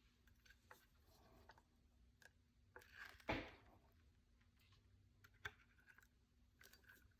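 Near silence, with faint scattered clicks and one louder short knock about three seconds in.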